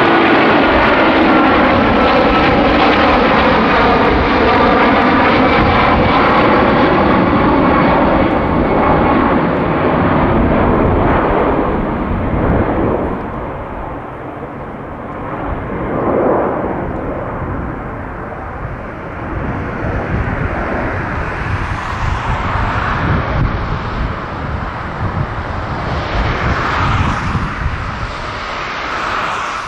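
Airbus A330-343 airliner's twin Rolls-Royce Trent 700 turbofans at climb-out thrust: a loud jet roar with whining tones that slowly fall in pitch as it passes and moves away, dropping after about ten seconds to a duller, uneven rumble as it climbs into the distance.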